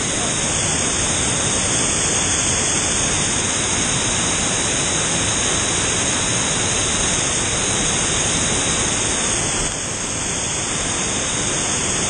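A small waterfall in strong wind: a loud, steady rush of falling water mixed with wind buffeting the microphone. The gale is strong enough to blow the fall's spray back upward.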